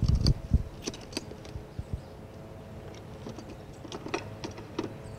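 Handling noises at a curbside water meter box: a few heavy thumps at the start, then scattered light, irregular clicks and knocks.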